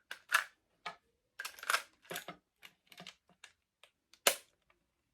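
Small plastic clicks and short scrapes from a small screwdriver and hands working at a toy RC truck's plastic battery cover, opening the compartment. The clicks are irregular, with two sharper ones about half a second in and near the end.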